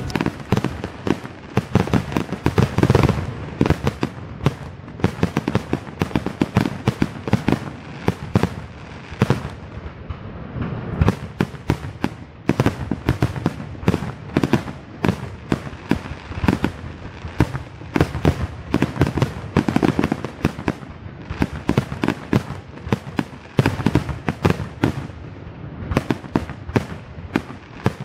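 Aerial fireworks display: a rapid, continuous barrage of shell bursts, several bangs a second with hardly a pause.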